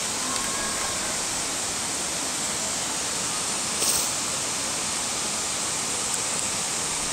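Steady rushing background noise, even and without any rhythm, with a short rustle about four seconds in.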